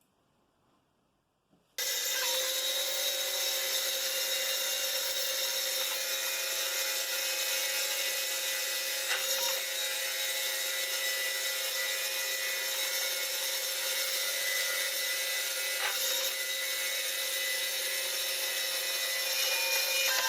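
Homemade CNC lathe running and turning a chess pawn blank: a steady machine whine of several held tones over the hiss of the cutting tool on the spinning workpiece. It starts abruptly about two seconds in and holds evenly.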